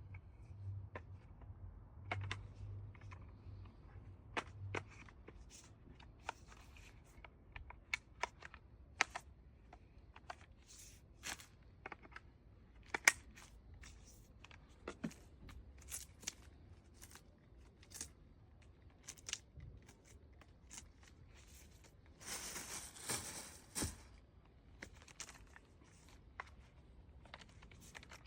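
Scattered clicks, knocks and light handling noises, with a short hiss lasting under two seconds about twenty-two seconds in.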